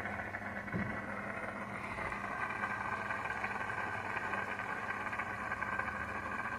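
Aquarium air pump and filter running: a steady low electrical hum under an even hiss of moving water. A single soft low knock about a second in.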